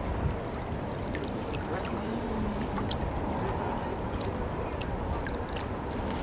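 Steady outdoor background noise with a low rumble, dotted with faint scattered high ticks and chirps.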